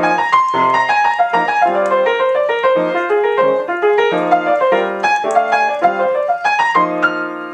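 Solo jazz piano playing a quick run of short melodic groups drawn from the F minor pentatonic scale, some of them descending, then a held chord that rings and dies away near the end.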